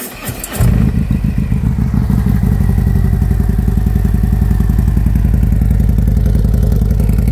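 2020 Harley-Davidson Road Glide Special's Milwaukee-Eight 114 V-twin, breathing through a newly fitted Sharkroad aftermarket exhaust, being started. The starter clatters briefly, the engine catches with a loud burst about half a second in, and then it settles into a steady idle.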